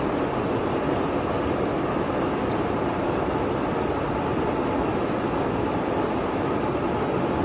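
Steady in-flight noise inside a KC-135 Stratotanker: a constant rush of airflow and jet engine noise, unchanging throughout.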